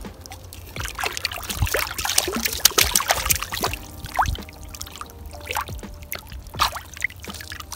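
Shallow water splashing and trickling in irregular strokes as a hand releases a small trout.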